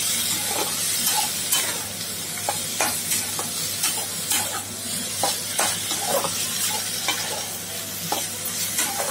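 Diced ridge gourd, tomato and onion sizzling in oil in a kadai while being stirred. A spatula scrapes and knocks against the pan in short irregular clicks over the steady frying hiss.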